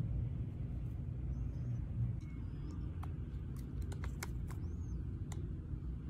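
A steady low rumble, with several sharp clicks about three to five seconds in and a few faint high chirps from a sun conure close to the microphone.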